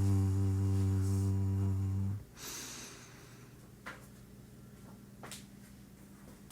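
A man's voice holding a low mantra syllable on one steady, humming pitch, which stops about two seconds in. It is followed by a breath in, then near quiet with a couple of faint clicks.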